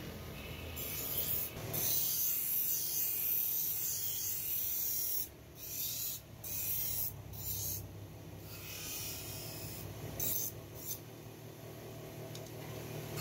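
Motor-driven grinding wheel grinding a forged iron knife blade: a harsh hiss of steel against the stone, broken by several short gaps between passes, over the steady hum of the motor.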